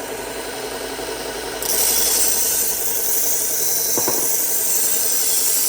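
A 1x30 belt grinder runs steadily. About one and a half seconds in, a Henckels Twin knife blade goes onto its 120-grit Cubitron belt, and a loud grinding hiss rises over the motor hum for about four seconds. This is a pass down and back to thin the blade behind the edge until a burr forms.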